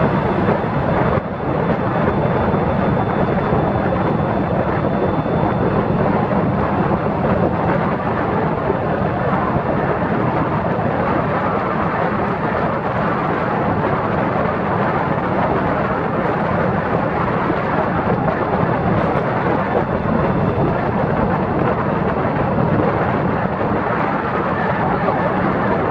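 Steady rush of wind buffeting the microphone over the road and motor noise of a small open vehicle riding along a highway, with a low hum underneath.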